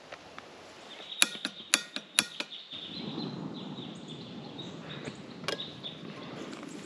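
Canister-top camp stove being lit: three sharp igniter clicks about half a second apart, then the gas burner catches about three seconds in and runs with a steady rushing hiss. A light clink comes a little before the end as the frying pan goes onto the burner.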